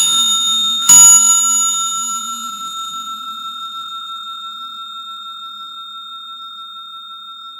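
Bell sound effect, the notification-bell ding of a subscribe-button animation. It is struck again about a second in, then rings out with a slow, slightly wavering fade.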